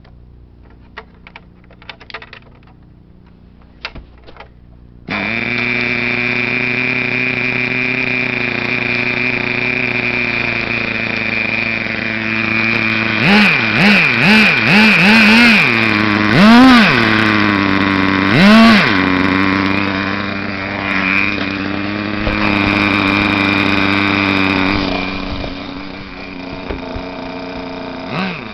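Small .18-size nitro (glow-fuel) two-stroke engine of an RC truck. It catches suddenly about five seconds in after a few faint clicks, then runs at a steady high-pitched idle. About halfway through it is blipped rapidly five times, then revved twice in longer sweeps, and it settles back to idle.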